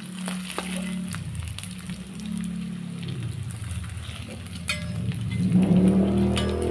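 Pieces of ulen (pounded glutinous rice cake) sizzling and crackling as they deep-fry in oil in a wok, with a steady low hum underneath. A spatula pushes the pieces apart and clinks against the wok a couple of times near the end.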